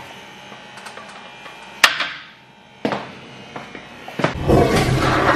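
A few sharp knocks and clatters from the toilet stall, the loudest about two seconds in. Then, about four and a half seconds in, a toilet flushes with a loud, steady rush of water.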